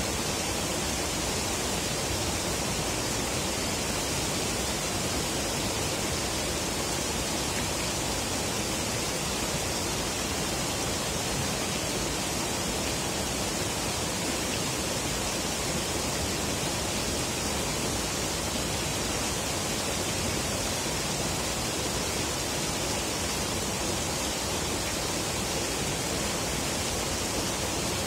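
River water rushing steadily, an even, unbroken hiss.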